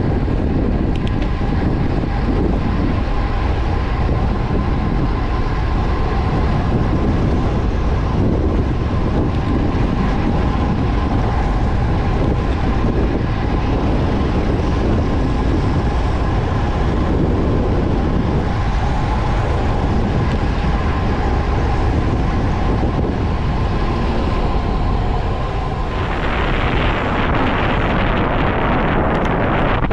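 Wind rushing over the microphone of a road bike descending at speed, mixed with road noise. About 26 seconds in the rush turns brighter and harsher.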